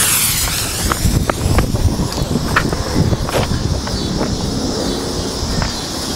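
Ground firework fountain igniting with a sudden rush, then spraying with a steady high hiss and a few scattered sharp pops.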